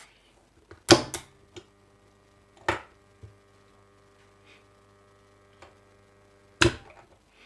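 DOL starter's AC contactor clacking in about a second in, then humming steadily while its coil is energized, with another click about two seconds later. Near the end the stop button drops it out with a clack and the hum stops.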